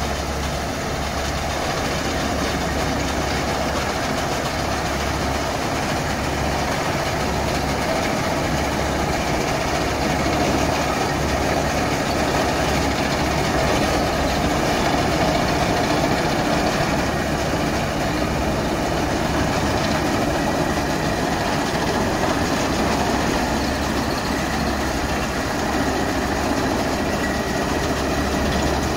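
Bomag roller compactor's diesel engine running steadily, with a strong low hum and no change in pitch.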